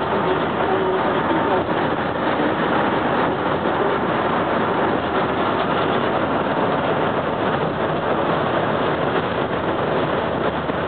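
Steady engine and tyre-on-road noise of a GO Transit bus cruising at freeway speed, heard from inside the cabin.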